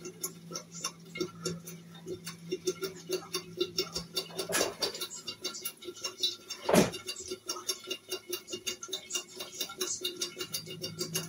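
Jollof stew simmering in a lidded pan, a dense, irregular run of small pops and ticks over a steady low hum. Two louder clatters come about halfway through.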